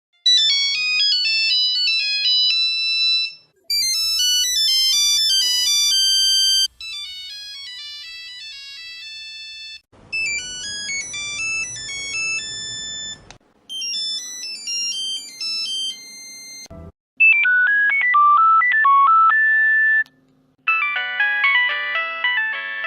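Nokia mobile phone ringtones played one after another: about seven short electronic melodies of beeping notes, each lasting a few seconds and cut off abruptly before the next begins.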